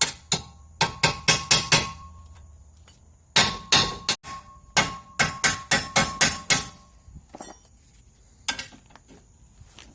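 Sharp metallic knocks in quick runs of several strikes, with a faint ringing after some of them, from work on a car's suspension.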